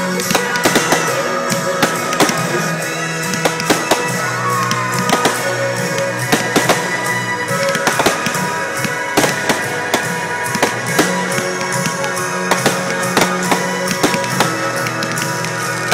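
Music playing with steady held notes and a moving bass line, under frequent irregular sharp bangs and crackles of aerial fireworks bursting.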